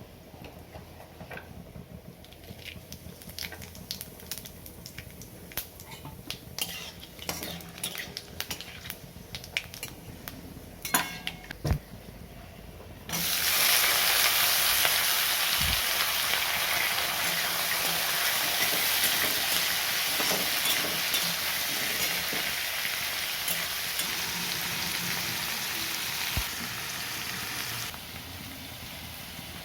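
Cooking in a pan for chicken kadai: a spoon or spatula clinks and scrapes against the pan for the first dozen seconds, then a loud frying sizzle starts suddenly and runs for about fifteen seconds before dropping off shortly before the end.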